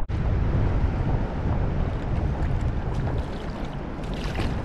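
Strong wind buffeting the microphone: a steady, noisy rumble with no words over it.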